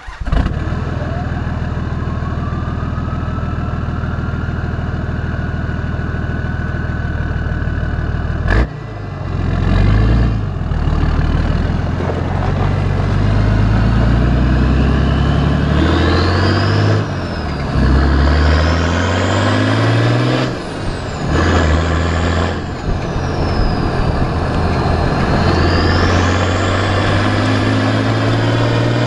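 Nissan TD42T turbo-diesel straight-six through a 3-inch custom exhaust with one small muffler, heard at the tailpipe. It idles with a whine that rises over the first few seconds and then holds. About nine seconds in it pulls away and revs up and drops back several times as it changes gear, with the T3/T4 turbo's whistle rising and falling over the exhaust note.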